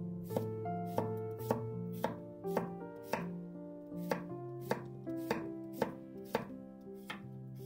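Chef's knife slicing through a cucumber on a wooden cutting board, the blade tapping the board in an even rhythm of about two cuts a second, over soft background music.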